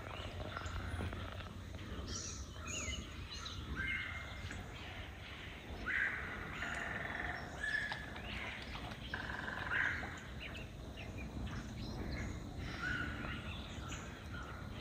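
Birds calling in forest: many short chirps and calls overlap, with louder calls about six, eight and ten seconds in, over a low steady rumble.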